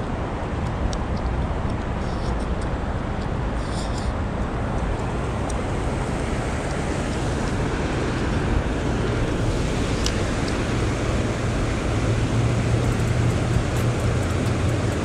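Steady rush of flowing river water over a shallow riffle, with a low rumble underneath that grows in the second half and a few faint light clicks.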